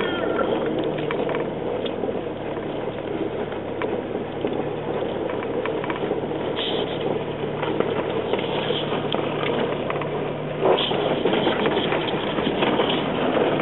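Jeep rolling slowly down an icy, snow-packed trail, heard from inside the cabin: a low steady engine hum under the crackle of tyres over crusted snow and ice, with small rattles and clicks. There is a louder knock near the end, after which the noise is louder.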